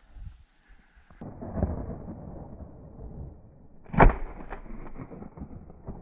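Two shots from a Franchi Affinity 3 semi-automatic shotgun fired at flushing chukar: the first about a second and a half in, the second and loudest about four seconds in, each followed by a rumbling tail.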